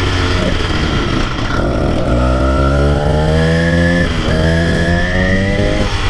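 Small motorised-bicycle kit engine running under way, its pitch climbing as it accelerates about two seconds in, dipping briefly near four seconds in, then climbing again.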